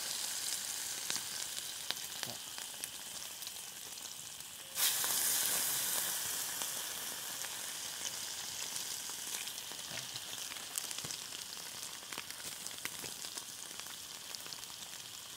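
Hot fat sizzling and crackling in a small frying pan over an open wood fire. The sizzle surges suddenly louder about five seconds in, then slowly eases back.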